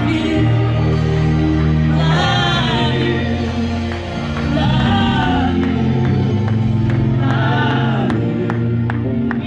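A gospel song with a lead singer over held keyboard and bass chords and a light percussion tick, played loud through a hall's sound system. The singer's phrases rise and fall every couple of seconds.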